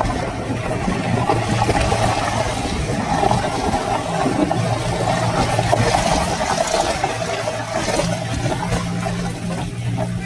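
A vehicle driving through shallow muddy water on a waterlogged road: water swishes and churns under the wheels over a steady engine hum.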